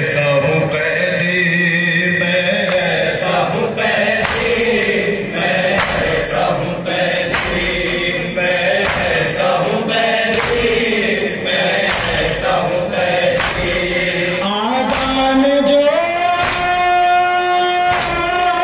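Men's voices chanting a noha, a Shia lament for Imam Sajjad, led by a reciter on a microphone with a group joining in. Sharp slaps of matam (chest-beating) come about every 0.7 seconds. Near the end the chant climbs in pitch and holds one long note.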